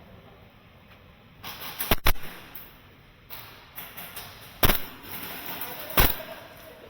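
Airsoft guns firing single shots as sharp, separate cracks: two close together about two seconds in, then one near five seconds and another near six.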